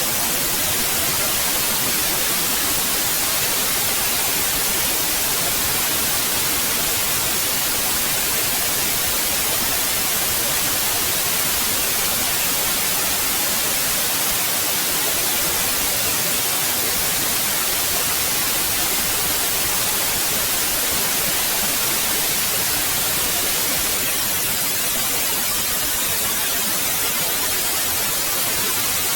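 Steady synthetic white noise: an even, unbroken hiss across all pitches, brightest at the top.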